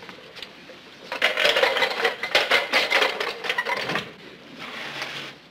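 Clattering and rattling of a front door's latch and lock being worked, starting about a second in and lasting some three seconds.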